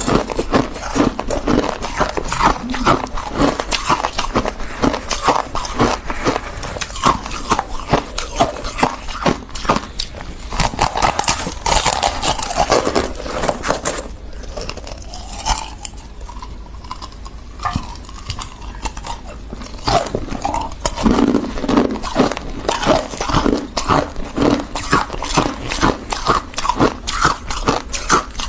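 Crisp crunching and chewing of refrozen freezer frost, a dense run of rapid crackles close to the microphone. The crunching drops to a softer level for several seconds in the middle, then picks up again.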